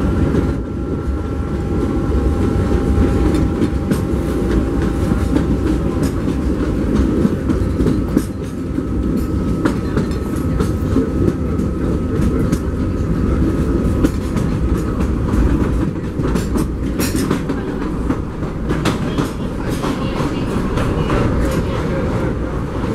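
Open-sided railroad passenger car rolling along the track, a steady low rumble with clickety-clack of the wheels. A faint steady whine fades out about two-thirds of the way through, and sharper clicks come more often toward the end.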